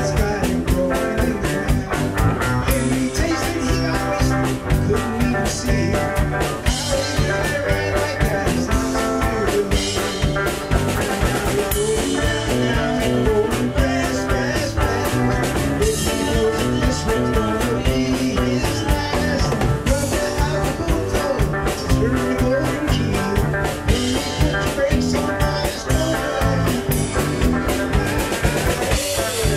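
A live band jamming: a drum kit keeping a steady beat under amplified electric guitars.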